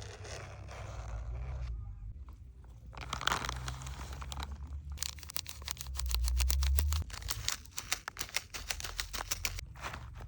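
Rustling and tearing handling noise, then a fast run of sharp scraping clicks for several seconds, with a low rumble underneath.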